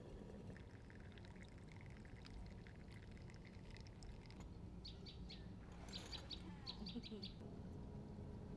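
Faint bird chirps over a low steady background noise. Soft scattered calls come first, then a few quick series of sharper chirps from about five seconds in.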